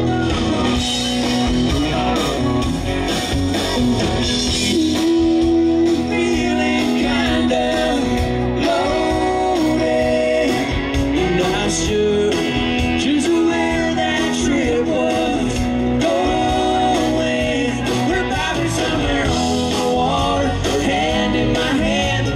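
Live country band playing: acoustic and electric guitars and drums, with a lead vocal sung over them.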